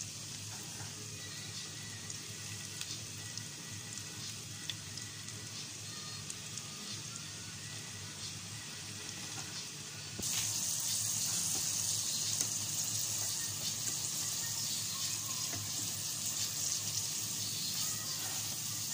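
Panko-breaded onion rings deep-frying in hot oil: a steady sizzle and crackle of bubbling oil, which gets louder and brighter about ten seconds in.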